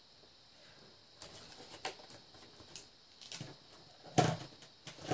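Irregular light taps and clicks of paint cups being handled and set down on the work table, with the loudest knock about four seconds in.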